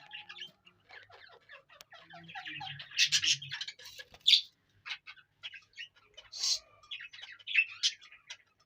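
Budgerigars chattering with quick, busy chirps, and now and then a louder, sharper call.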